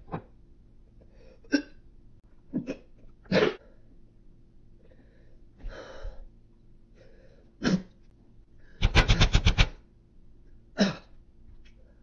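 A woman's short, sharp non-speech vocal sounds: breaths, huffs and gasps, one every second or so, with a loud rapid stuttering run of about eight pulses in under a second, some nine seconds in.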